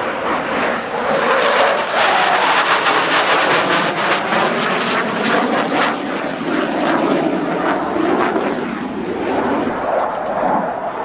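F-15 Eagle's twin F100 turbofan jet engines running at high power in a fly-by, with a ragged crackle. It is loudest a few seconds in, then eases off a little.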